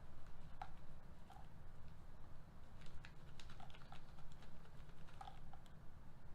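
Hop pellets being tipped out and weighed on a digital scale: scattered small irregular clicks and ticks, over a steady low hum.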